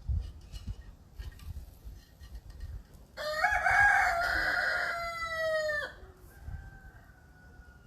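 A rooster crowing once, about three seconds in: one long call of nearly three seconds that drops in pitch as it cuts off.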